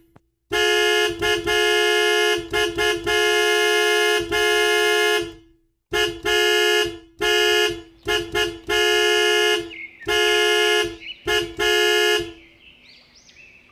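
Cartoon sound effect of a school bus horn honking over and over. It is a two-note horn, in a run of short and held honks with a brief pause about six seconds in, and it stops about twelve seconds in.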